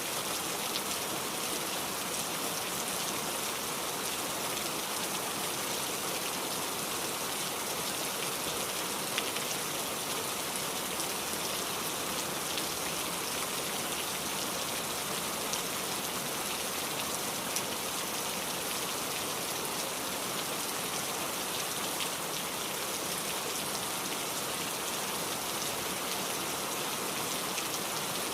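Steady rain falling and pattering on a surface, an even hiss with occasional individual drop ticks.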